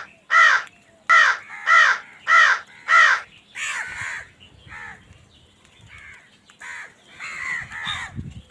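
Crows cawing: a run of loud, evenly spaced harsh caws, about two a second, for the first three seconds, then fainter, more irregular caws.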